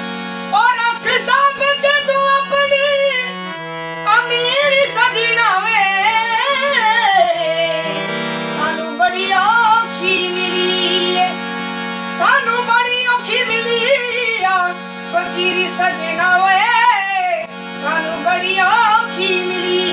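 A young male voice singing a Punjabi song in long, wavering melismatic phrases, accompanied by a harmonium's held drone and chords, which change pitch a few times.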